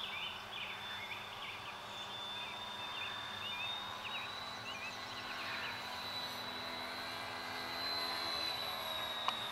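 Electric motors and propellers of a scratch-built depron twin-engine model flying boat, the Ross Islander, whining steadily in flight and growing a little louder about eight seconds in. Birds chirp faintly in the background.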